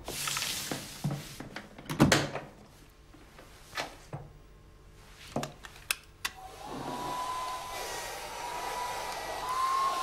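Knocks and clicks of a laptop being set down and opened on a table. About six seconds in, a steady whirring with a thin whine starts up as the laptop runs.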